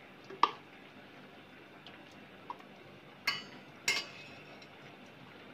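A metal spoon clinking a few times against a stainless-steel bowl while soft cooked tomato pulp is scooped. The two loudest clinks fall past the middle, a little over half a second apart, each ringing briefly.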